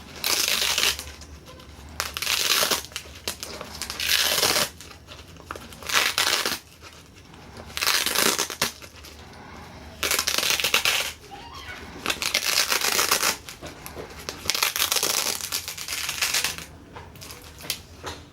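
Repeated crumpling, crushing noise in about nine separate bursts, roughly one every two seconds, each lasting about a second.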